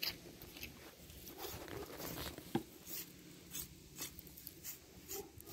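A knife cutting through the flesh and fat of a pig carcass: faint, scattered small clicks and crackling handling noises, with one sharper click about two and a half seconds in.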